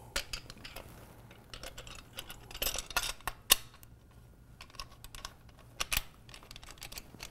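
Irregular small metal clicks and taps as a chrome air cleaner backing plate is seated against a motorcycle throttle body and its bolts are started with a hex driver. The sharpest click comes about three and a half seconds in.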